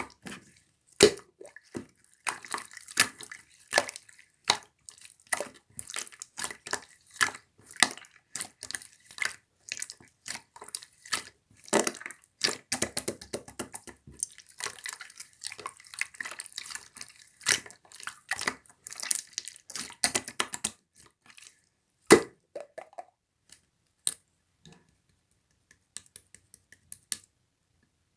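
Slime being squished and pressed by hand, giving a quick, irregular run of wet, sticky pops and clicks that thins out to scattered clicks for the last several seconds.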